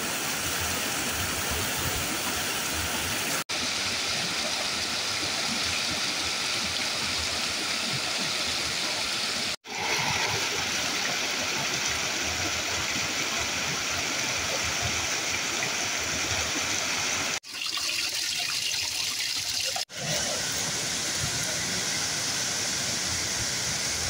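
Steady rush of a waterfall, broken by four brief dropouts.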